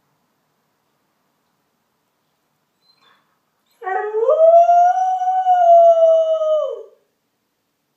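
A dog howling: one long howl about four seconds in, rising at the start, held, then dropping off at the end.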